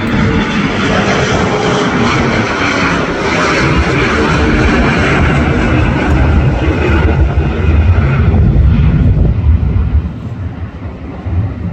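Bombardier CRJ-900 regional jet's two rear-mounted turbofans at takeoff thrust as it climbs away after lift-off: a loud, rough rumble. The rumble swells deepest about eight seconds in, then drops off near the end as the jet pulls away.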